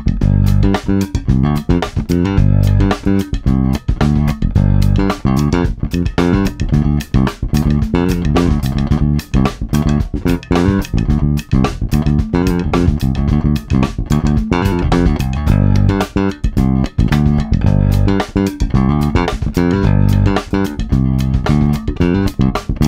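Modern Vintage MVJ4-72 electric bass, a copy of a 1972 Fender Jazz Bass, played through an amp in a busy line of short, sharply attacked notes.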